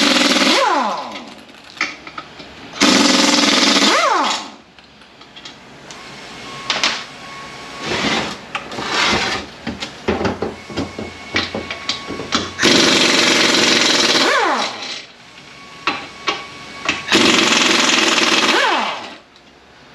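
Pneumatic impact wrench hammering in four short bursts as it backs out the shift-fork bolts, each burst spinning down with a falling whine. Metal clicks and clinks of the bolts and parts between bursts.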